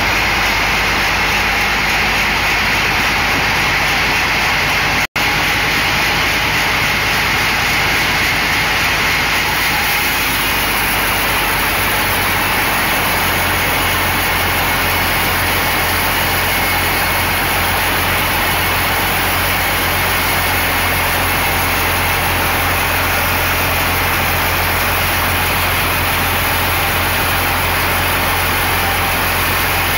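Log band saw running and sawing lengthwise through a large log: a loud, steady machine noise with a low hum. About ten seconds in it grows hissier as the cut goes on, and near five seconds there is a split-second dropout.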